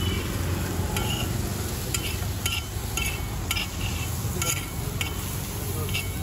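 Metal spatula striking and scraping a hot griddle while vegetables fry and are mixed: short ringing clinks about twice a second from about two seconds in, over a steady low hum.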